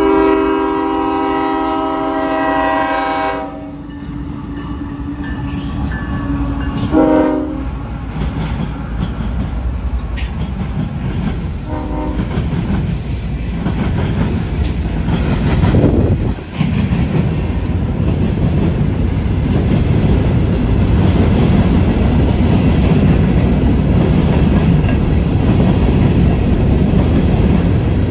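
Locomotive air horn sounding a long chord of several tones, a short blast about seven seconds in and a brief faint one near twelve seconds. A train then passes with a steady rumble and clatter of wheels on rail that grows louder toward the end.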